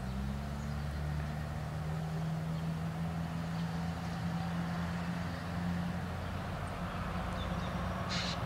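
Diesel locomotives of an approaching freight train heard at a distance as a steady low engine drone with a few held low tones. A brief high-pitched sound comes near the end.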